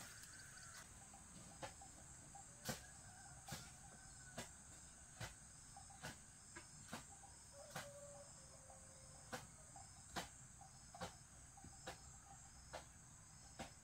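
Insects, crickets by the sound of the tags, chirping in a steady high chorus. Short sharp knocks or taps come about once a second, a little irregularly.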